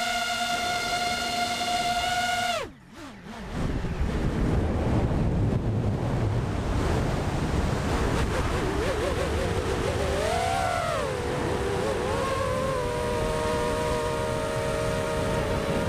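Drone's electric motors whining at a steady pitch, then throttled down about three seconds in, so the whine drops sharply in pitch and fades. Wind then rushes over the onboard camera as the drone descends. About eight seconds in the motors spool back up with a wavering whine that settles into a steady pitch.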